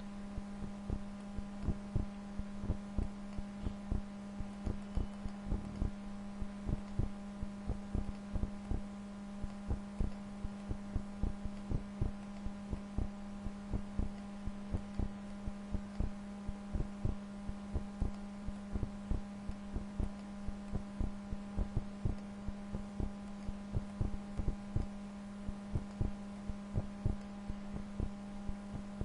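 Computer mouse clicking repeatedly at an irregular pace, a few clicks a second, over a steady electrical hum.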